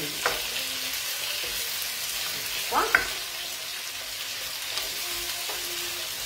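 Pieces of boiled octopus and sliced artichokes sizzling in a wok over a lively gas flame as they are stirred with a wooden spoon. Two sharp knocks cut through the steady sizzle: one just after the start, and a louder one about three seconds in.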